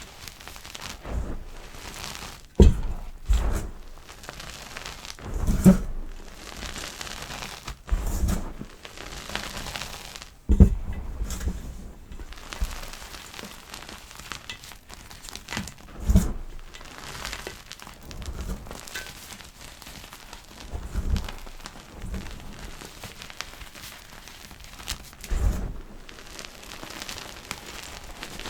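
Gym chalk being crushed: soft crackling and crumbling, with a dull thump every two to three seconds.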